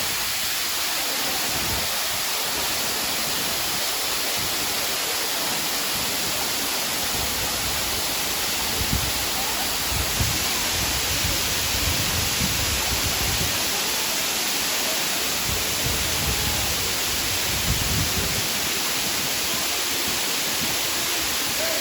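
Waterfall pouring, a steady full rush of falling water, with occasional low rumbles in the second half.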